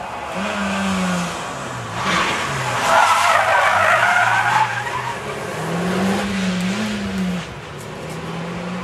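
Mitsubishi Lancer Evolution rally car sliding through a hairpin, its tyres squealing for about two seconds near the middle. Its turbocharged four-cylinder engine drops in pitch on the way into the corner, then revs up as it accelerates away, dipping at a gear change and rising again near the end.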